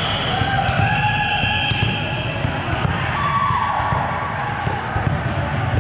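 Volleyball court sound: balls bouncing and thudding on the hard gym floor in quick, overlapping succession, over a steady din in the hall.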